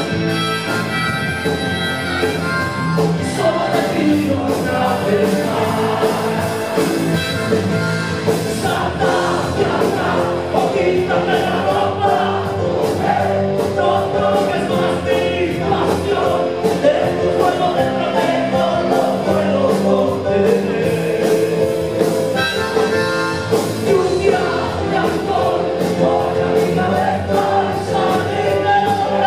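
A live rock band playing a song with sung vocals, steady and loud throughout.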